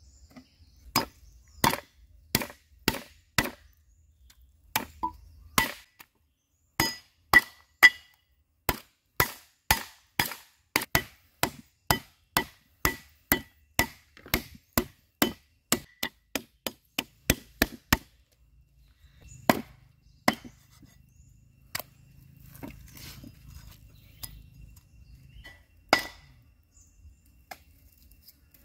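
Cleaver chopping a snake into pieces on a wooden log chopping block: a steady run of sharp chops, about two a second, for most of the first two-thirds, then a few scattered chops.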